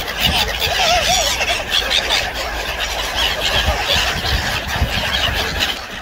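A crowd of waterbirds calling over one another, gulls, ducks and geese, in a dense, steady chatter of squawks and honks, with a run of lower, wavering calls about a second in.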